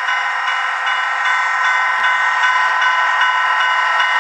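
A model diesel locomotive's DCC sound decoder playing a running diesel engine, a thin, bass-less sound of several steady tones that pulse about two and a half times a second.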